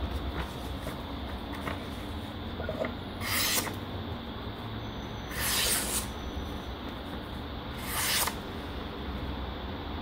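A Ganzo Firebird F759-GR folding knife slicing through a sheet of paper three times, a little over three, five and a half and eight seconds in. Each cut is a short hissing rasp of about half a second, and the middle one is the loudest.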